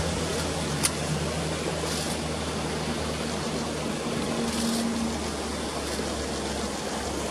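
Steady low motor hum under an even hiss, with a single sharp click about a second in.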